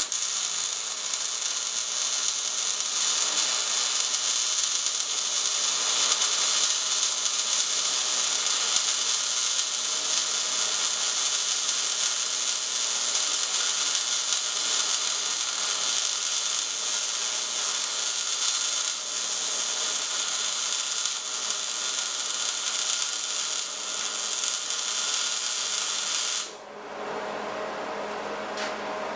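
MIG welding arc running one continuous bead, a steady crackle, cutting off suddenly near the end. The arc is dialled in to the right wire speed and voltage for a smooth, even sound.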